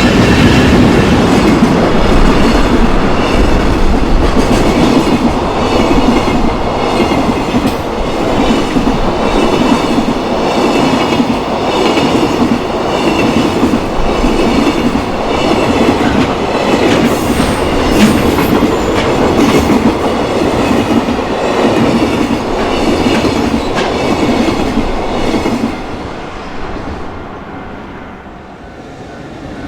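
A train passing close by at a level crossing, its wheels clattering over the rail joints in a regular rhythm. It is loud for most of the time, fades away about 26 seconds in, then starts rising again near the end.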